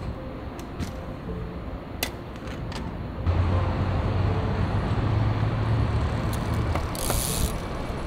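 Mechanical ratcheting clicks, then a louder steady low rumble sets in about three seconds in, with a short hiss near the end.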